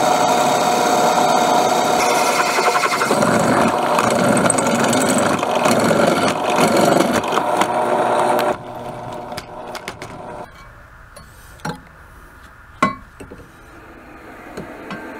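Drill press running, its twist bit cutting through a high-carbon steel knife blank: a steady machine whine with rough grinding chatter. About eight and a half seconds in it drops away suddenly, leaving a much quieter background with two sharp knocks.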